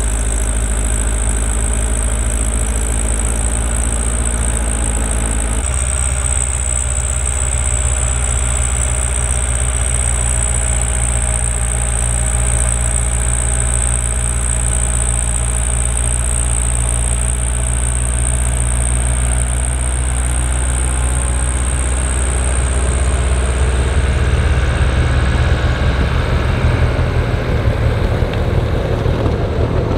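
New Holland L85 tractor's diesel engine running steadily under load while driving a PTO-powered two-stage snowblower through wet, heavy snow, with a steady high whine over it. It grows louder near the end as the tractor and blower pass close.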